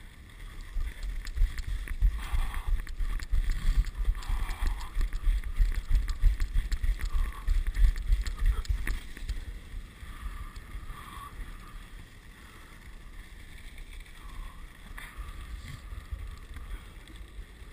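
A moving dog sled: a steady hiss and scrape of the runners on snow under wind buffeting the microphone, with scattered small clicks and knocks. It is louder for roughly the first half, then eases off.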